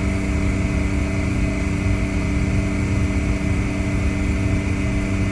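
Vacuum pump running with a steady hum and a low rumble underneath.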